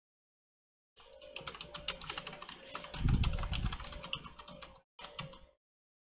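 Fast typing on a computer keyboard, a quick run of key clicks lasting a few seconds with a low dull thump partway through, then a short final burst of keystrokes.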